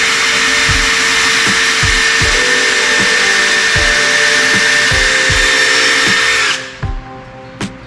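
Worx electric drill running steadily at constant speed, then stopping abruptly about six and a half seconds in. Background music with a steady beat plays underneath.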